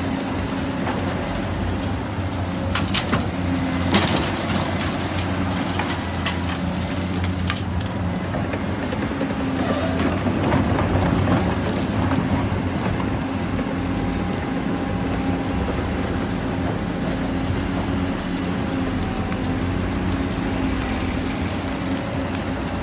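Radio-controlled model construction vehicles running, a steady mechanical hum of small motors and gears with a few scattered clicks and knocks.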